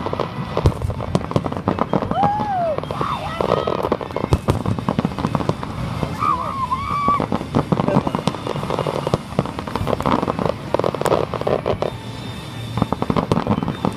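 Fireworks display finale: a dense, continuous run of shell bursts and bangs with crackling, the reports following close on one another.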